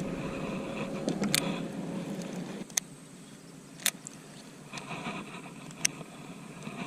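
Road traffic passing, one vehicle fading out and another coming up, with three sharp clicks between them.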